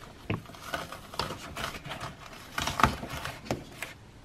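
Plastic trim and carpet lining on a car's rear cargo floor being pulled and cut by hand: irregular rustling and crinkling with a few short sharp cracks, the loudest a little before three seconds in.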